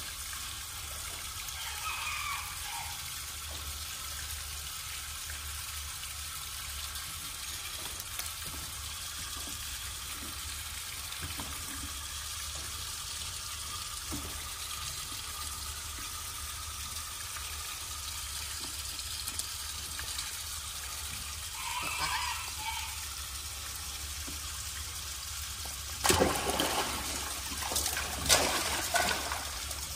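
Water running and trickling steadily into a small pool, with a few brief high squeaks, then loud irregular splashing in the water over the last few seconds.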